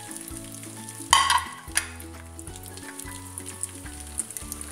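Diced calabresa sausage frying in hot bacon fat: steady sizzling with small crackles and pops, and a sudden loud burst of spattering about a second in.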